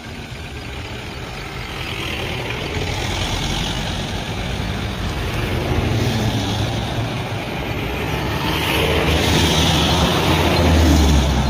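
Motor vehicle engines idling close by, a steady low rumble that grows louder toward the end.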